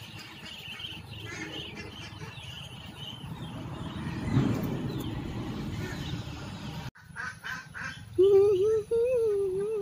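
Backyard ducks and chickens: faint quacking and clucking over a rustling background that swells around the middle. After an abrupt cut about seven seconds in come a few sharp clicks, then a long, loud, wavering call near the end.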